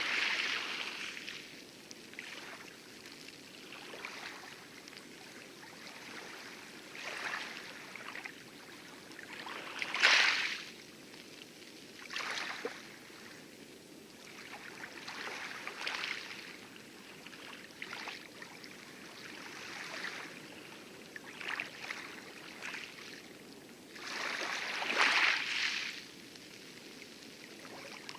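Light lagoon waves lapping and splashing on coral: irregular splashes every few seconds, the biggest near the end, over a steady wash of distant heavier surf breaking on the atoll's outer reef.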